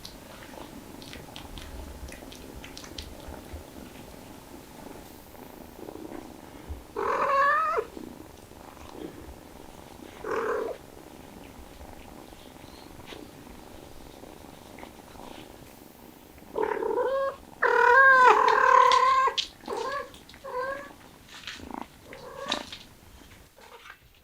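Cats meowing: a single call about a third of the way in and another a few seconds later, then a run of several drawn-out meows in the last third, the loudest of them in the middle of that run.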